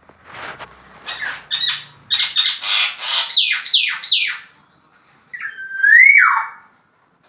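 Male black-naped oriole calling: a rapid run of harsh, down-slurred notes, then one clear fluty whistle that holds, rises and drops steeply.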